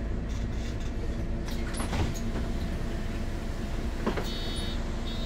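Inside a 2008 MAN NL 273 Lion's City city bus, its diesel engine idling steadily with a few clicks. About four seconds in, the door warning buzzer starts beeping in short high-pitched bursts as the doors are about to move.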